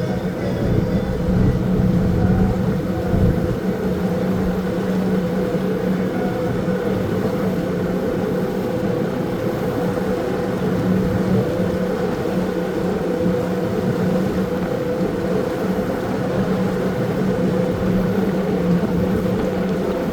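Motorboat engine running at a steady speed, a constant drone that holds the same pitch throughout.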